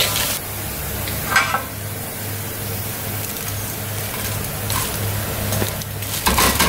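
Hot oil sizzling in a steel wok as fried breaded nuggets are scooped out with a wire skimmer, the sizzle loudest at first and fading. Metal skimmer and slotted spoon clink and scrape against the wok a couple of times, over a steady low hum.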